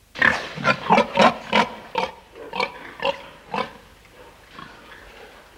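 Pig grunts: a quick run of about ten short oinks, loudest at first and fading over the last couple of seconds.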